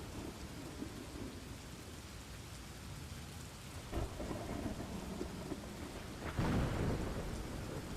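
Rain and thunderstorm ambience: steady rain with low, rolling thunder, one rumble starting about four seconds in and a louder clap of thunder swelling up near six and a half seconds.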